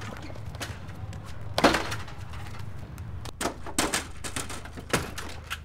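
A hand banging and rapping on the glass pane of a wooden storm door: a loud bang about one and a half seconds in, then several sharp knocks, over a steady low hum.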